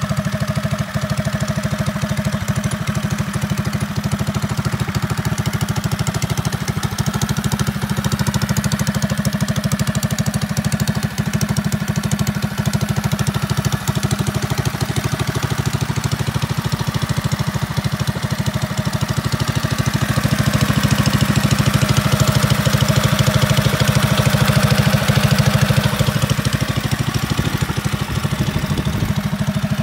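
Predator 460cc single-cylinder engine on a custom trike idling steadily, its firing pulses running evenly, growing a little louder for several seconds past the middle.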